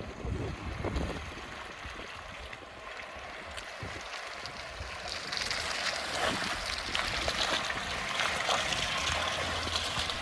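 Off-road vehicle driving through mud and water: steady rushing and splashing with many small spatters, getting louder and brighter about halfway through.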